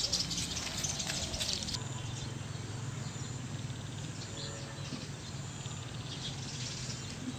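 Outdoor rural ambience: a steady background hiss with faint, scattered high chirps.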